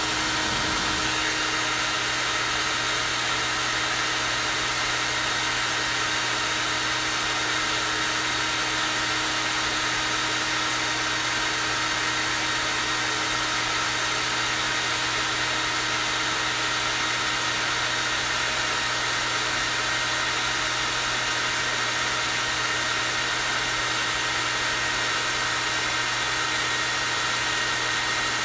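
Hair dryer running steadily on its high, strong-airflow setting: an even, high-pitched rush of air over a constant motor hum.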